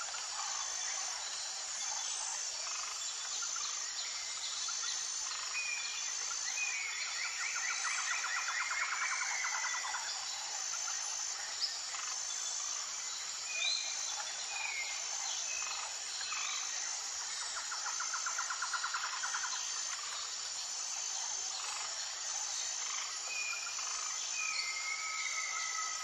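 Jungle soundscape: a steady, high insect chorus with an evenly pulsing buzz, scattered short bird calls, and twice a rapid trill lasting a few seconds.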